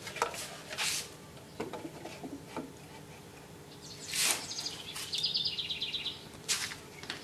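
A small bird chirping in a rapid, even trill for about a second and a half, midway through, with a few brief scuffs and rustles of handling around it.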